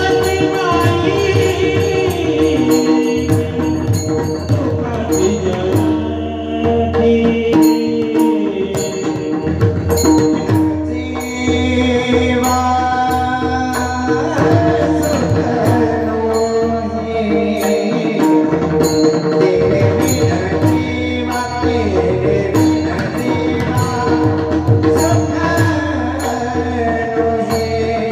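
Marathi Warkari kirtan chal: male voices sing a long, melismatic devotional melody over a steady held drone, with pakhawaj drum strokes and a regular high metallic beat.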